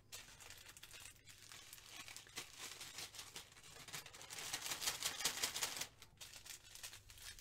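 Small plastic zip bags of diamond-painting drills crinkling and rustling as they are handled and packed together, with scattered light clicks, loudest about four to six seconds in.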